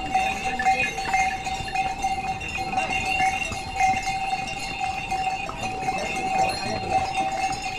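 Bells on a pony's harness ringing continuously in a jingling, pulsing rhythm as it walks.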